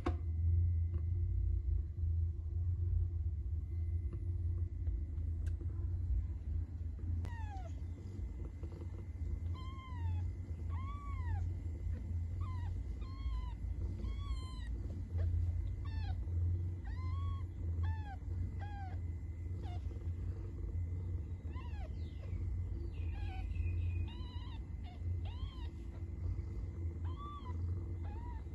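Newborn kittens mewing in short, high squeaks while nursing. The squeaks start after several seconds and then come irregularly, about one a second. A steady low rumble runs underneath throughout.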